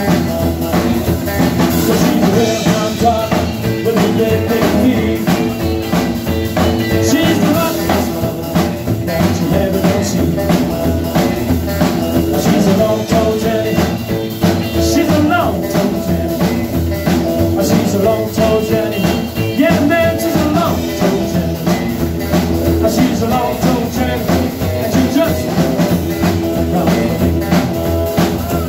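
Live rock and roll band playing: a man singing over strummed acoustic guitar, a Telecaster-style electric guitar, upright double bass and a drum kit.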